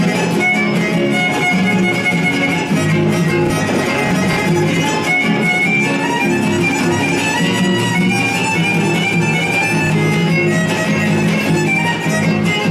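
Live trio of violin and two guitars playing an instrumental passage: the violin plays a busy melody of quick notes over the guitars' steady strummed chords.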